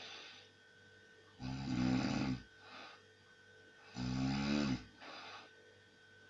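A man snoring heavily in his sleep. There are two loud snores of about a second each, one about a second and a half in and one about four seconds in, and each is followed by a softer breath.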